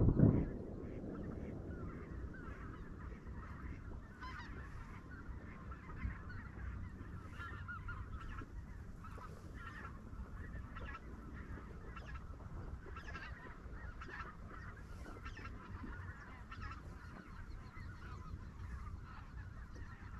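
A flock of greater white-fronted geese (specklebellies) calling in flight, with many short overlapping high calls and a steady low rumble underneath. There is a brief louder low noise at the very start.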